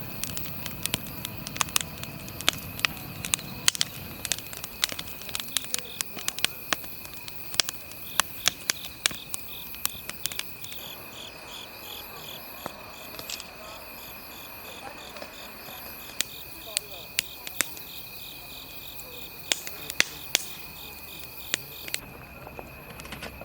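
Crickets and other insects chirping in a steady high trill, with pulsing chirps through the middle stretch. Over them come sharp, irregular crackling pops from the direct-fire grill.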